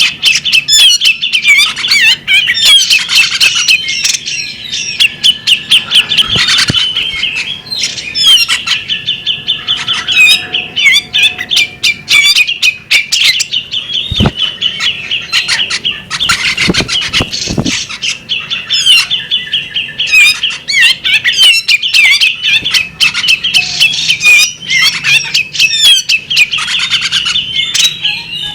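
Female magpie-robin singing a fast, unbroken chattering song of rapid chirps and trills. A few brief flutters or knocks break in, about a third of the way through and around the middle.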